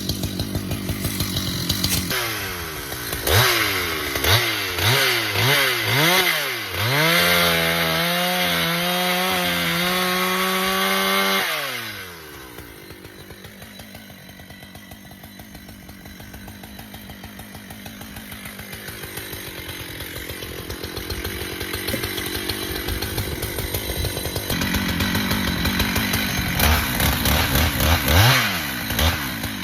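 Husqvarna chainsaw cutting the notch in a red maple trunk: it is revved up and down several times, then held at full speed for about four seconds. About twelve seconds in it drops back to a quieter idle, then rises again and is revved a few times near the end.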